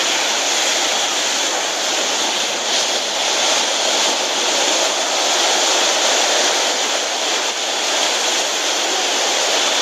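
Surf washing onto a sandy beach, a steady even noise with no breaks.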